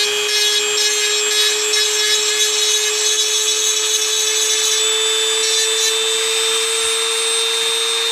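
Small high-speed rotary tool running at a steady high pitch while grinding, cleaning up a freshly cut edge on a die-cast toy truck.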